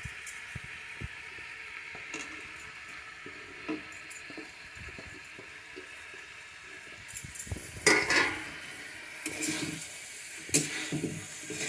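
Chowmein stir-fry of vegetables and noodles sizzling steadily in a pan, with light clinks of a spatula. From about eight seconds in comes louder scraping and clattering of the spatula against the pan as it is stirred.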